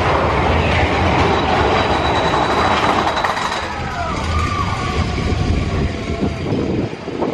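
Big Thunder Mountain Railroad mine-train roller coaster running on its track with a steady rumble of wheels on rails, with some high squealing about halfway through.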